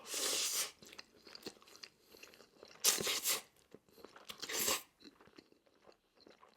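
Close-miked mouth eating sounds: chewing and crunching of crisp food, in three loud crunchy bursts with softer chewing between.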